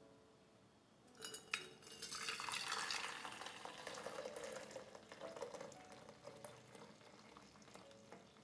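Hot palm-sugar agar-agar liquid poured from a steel pot through a fine mesh strainer into a stainless steel jug: a few light metal clicks about a second in, then a steady splashing pour that slowly fades toward the end.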